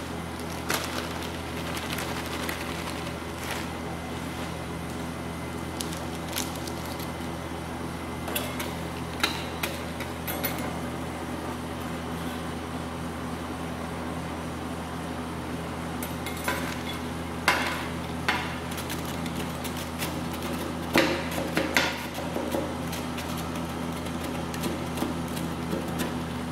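Steady hum of a rolled ice cream machine's cold plate refrigeration, with metal spatulas clinking and scraping on the steel plate. Several sharper taps in the second half come from the spatulas chopping snacks into the cream.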